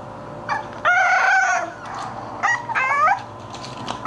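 English bulldog puppies whining: four high cries, a short one, then one long held cry about a second in, then two shorter wavering cries near the three-second mark.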